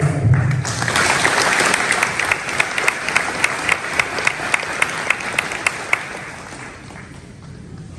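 Audience applauding. The applause swells about a second in, with single sharp claps standing out at a steady pace, and dies away over the last couple of seconds.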